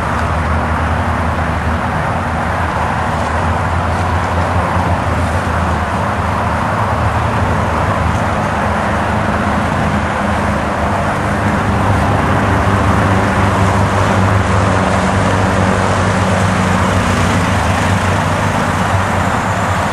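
Linhai CUV 300 utility vehicle's engine running steadily as it is driven off-road, getting a little louder about halfway through.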